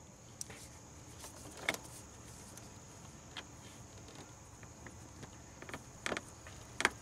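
Scattered light clicks and knocks of hand tools and cable ends on a side-post car battery as its cables are reconnected, the sharpest about two seconds in and again near the end.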